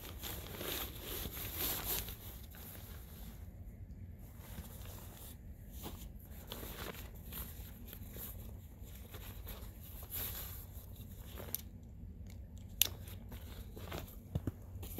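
Nylon backpack and stuff-sack fabric rustling and crinkling as it is handled. It is busiest in the first couple of seconds, and a few sharp clicks come near the end.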